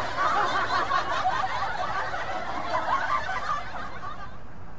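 High-pitched, fast chattering of several voices, fading out near the end.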